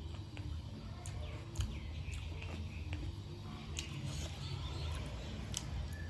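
Close-up eating sounds: chewing and mouth smacks with scattered short clicks over a steady low hum.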